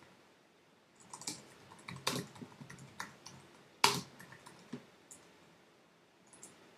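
Typing on a computer keyboard: irregular key clicks that start about a second in and thin out after about five seconds, with one key struck much harder near four seconds in.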